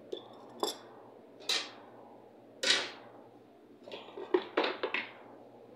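Small metal screws and hand tools clinking against each other and on a workbench during disassembly. The clinks are sharp and separate at first, then several come in quick succession near the end.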